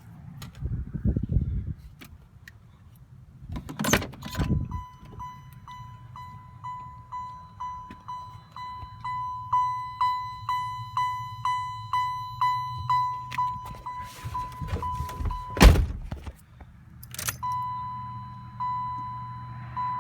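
Early-90s Camaro warning chime module, fitted in a 1993 Chevy K1500 pickup, chiming about twice a second: a single bright tone repeating, the truck's open-door/key warning. A thunk comes about 4 s in and a louder one about three quarters of the way through, after which the chime stops briefly and then comes back as longer tones.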